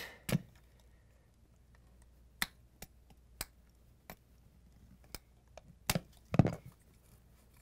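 Scattered sharp clicks and taps of a flat-blade screwdriver against the plastic housing and metal spade terminals of a GE refrigerator compressor start device (overload and PTC relay combo), as two wire connectors are pried off it. About eight separate clicks, the loudest a little before the end.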